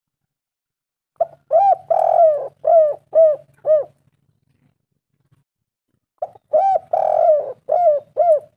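Spotted dove (tekukur) cooing: two phrases of about six arched coos each, a couple of seconds apart, with the third note of each phrase longer and louder than the rest.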